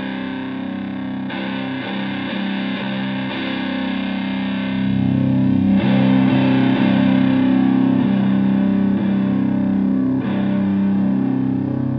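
Stratocaster electric guitar played through an EarthQuaker Devices Hoof fuzz pedal into a Fender Twin Reverb–style amp: sustained, thick fuzzed chords and notes that change every second or two, getting louder about five seconds in.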